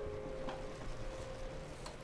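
Soft background piano music between phrases: one held note slowly fades away, with a couple of faint clicks.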